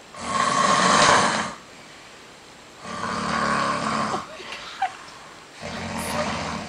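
Loud snoring: three long snores, one about every three seconds, with a brief click shortly after the second.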